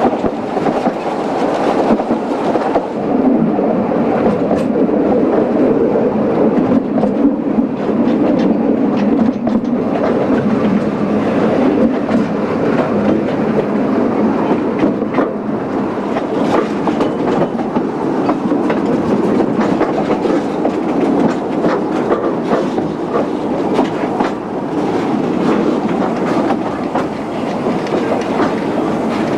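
Narrow-gauge passenger train rolling along, heard from a carriage window: a steady rumble of wheels on rail with clickety-clack over the rail joints. From about halfway the clicks come thick and fast as the wheels run over the pointwork into the station.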